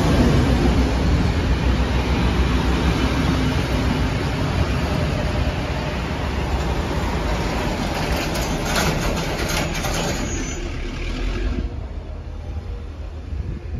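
Heritage train's wooden passenger carriages rolling past, their wheels clattering on the rails. A run of sharp wheel clicks comes about two-thirds of the way through, and the noise fades as the train moves away.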